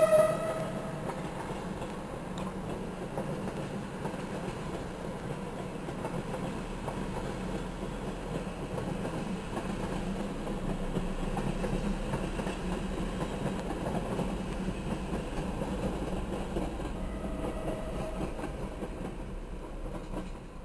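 Passenger train's coaches rolling past steadily on the rails, heard from inside a car beside the track. A short, loud tone sounds right at the start.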